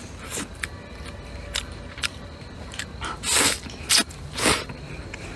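A person eating spicy fried rice noodles: small wet mouth clicks, then three loud slurps of noodles in the second half, one longer and two short.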